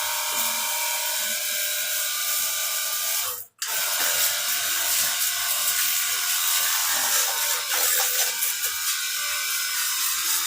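Battery-powered pressure washer running: a steady motor-and-pump whine with spray hiss, cutting out completely for a split second about three and a half seconds in.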